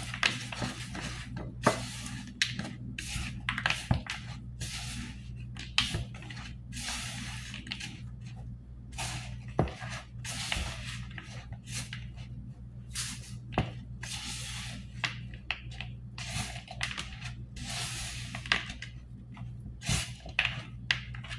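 A spatula scraping and stirring thick cookie dough around a plastic mixing bowl, in irregular strokes with a few light knocks against the bowl. A steady low hum runs underneath.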